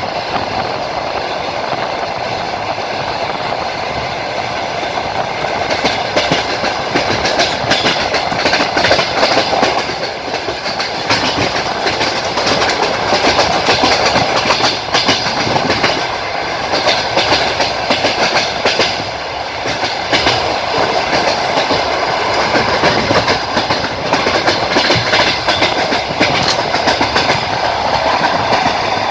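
Passenger train running along the line, heard from a coach window: steady rail rumble and rattle with the clickety-clack of the wheels over rail joints.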